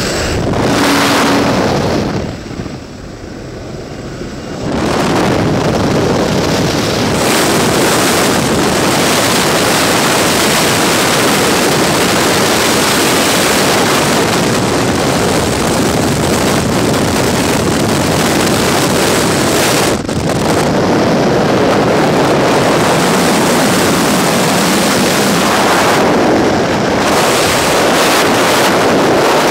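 Loud, steady wind noise on a helmet camera's microphone from the rushing airstream, first at the open door of a small aircraft in flight and then in freefall. It eases briefly about two seconds in and breaks off abruptly about twenty seconds in.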